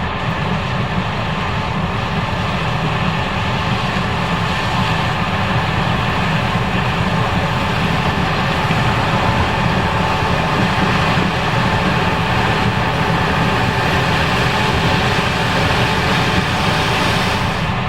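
Case IH 5140 Axial-Flow combine running steadily while harvesting corn: a constant heavy mechanical drone with a steady whine over it.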